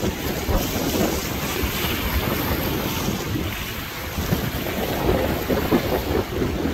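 Wind buffeting the microphone in irregular low gusts, over a steady rush of water.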